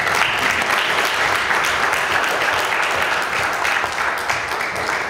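Audience applauding at the end of a talk: a loud, steady patter of many hands clapping that starts suddenly and holds throughout.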